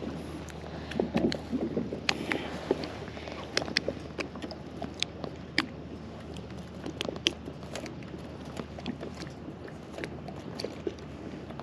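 Small waves lapping and slapping against a plastic kayak hull, with many irregular sharp little clicks and knocks over a steady low wash of water and light wind.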